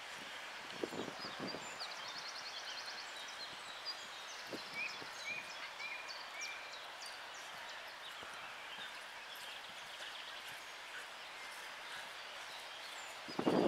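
Open-air field ambience: a steady background hush with small birds chirping and trilling in the surrounding trees, mostly in the first half, and a few faint low thumps early on.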